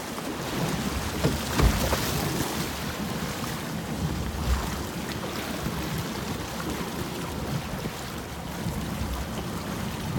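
Wind and water noise aboard a fishing boat at sea, with wind buffeting the microphone and two low thumps, about two seconds in and again near the middle.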